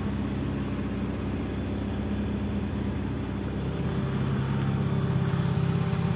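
Fuel-injected four-cylinder engine of a 1992 Honda Accord Maestro idling steadily, a little louder over the last couple of seconds.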